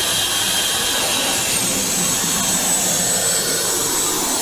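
Lollipop vending game machine's motor-driven tube mechanism running as it lifts, a steady whirring hiss. A thin high whine in it steps down slightly in pitch about a second and a half in.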